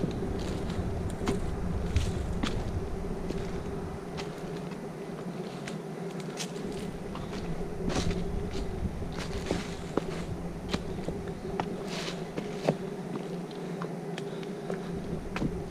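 A hiker's footsteps on a trail: irregular scuffs and taps over a steady low hum.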